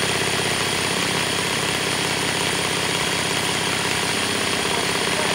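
Electric drill running steadily at constant speed, driving a homemade shaker screen, with a rapid continuous rattle.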